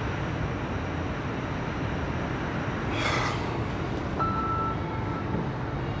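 Steady low rumble of street background ambience. A brief brighter sound comes about three seconds in, and a short held tone about four seconds in.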